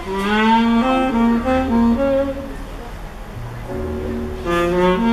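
Jazz recording played back through a pair of vintage Sony SS-H12 loudspeakers: a melodic lead line of held, gliding notes over low bass notes.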